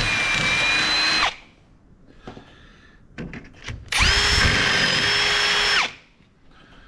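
A power drill running through rivet holes to clean them out. It spins down about a second in, then after a few light clicks runs again steadily for about two seconds and spins down.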